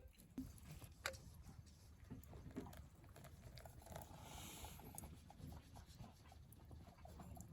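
Near silence: faint low background rumble with a few small clicks, the clearest about a second in, and a brief soft hiss around the middle.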